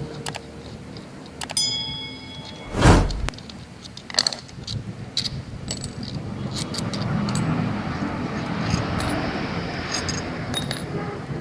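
Metal fan parts being handled: clinking and tapping, one part ringing briefly about one and a half seconds in, and a heavy knock about three seconds in. From about six seconds a steady rough scraping noise runs under further clicks.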